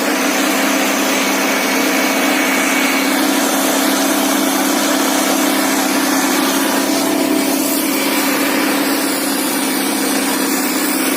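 Indo Farm 3055 DI tractor's diesel engine running steadily and loud under load while pulling two harrows.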